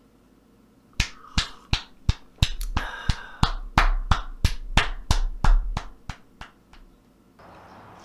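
A short edited-in percussive music clip: sharp snaps or claps about three a second over a low bass thump. It starts about a second in and stops about seven seconds in.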